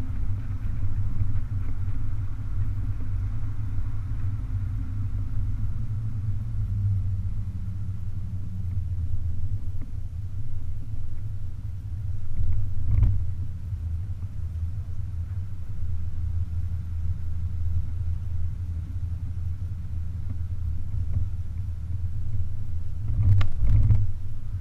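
BMW 420 convertible driving with the top down: a steady low rumble of the car and wind on the open cabin. A brief thump comes about halfway through and two more near the end.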